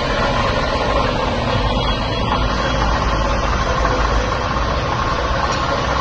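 Yamato GQ-50 bar cutter running steadily under power from its inverter drive: an even machine hum with a faint steady whine above it.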